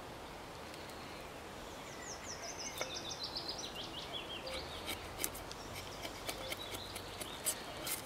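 Bushcraft knife carving the end of a peeled wooden pole, with short, sharp shaving strokes starting about halfway through, the loudest near the end. Earlier, a songbird sings a fast trill of falling notes.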